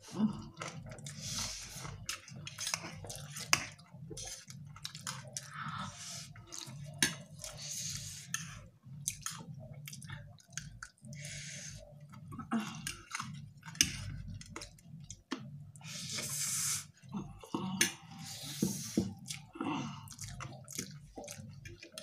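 Two people eating spicy instant noodles with metal forks: chewing and slurping, with sharp clicks of the forks and several short hissing breaths through the mouth.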